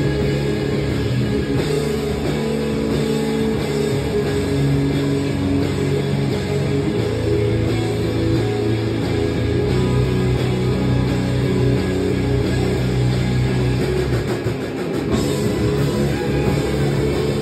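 Live rock band playing an instrumental passage: two amplified electric guitars, an electric bass and a drum kit, loud and continuous. The low end briefly drops out about fifteen seconds in before the full band comes back.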